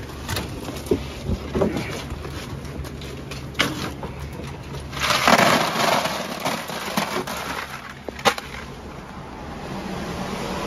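Sacked oysters and ice being handled and set down: scattered knocks and clatter, with a louder rattling rush lasting over a second about five seconds in and one more sharp knock near the end.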